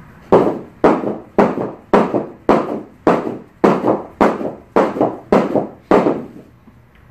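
Heavy battle rope slapping the floor in waves, both ends together, about eleven sharp slaps at a steady quick tempo of nearly two a second, stopping about six seconds in.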